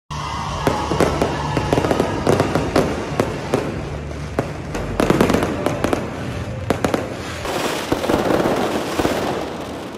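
Fireworks going off: a quick, irregular run of sharp bangs and pops, giving way about three-quarters of the way through to a dense hissing crackle that fades near the end.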